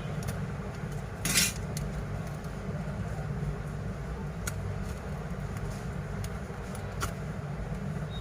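Small clicks and taps of a prying tool working against a smartphone's glass display and frame as the screen is levered off, with one brief scrape about a second in. A steady low rumble runs underneath.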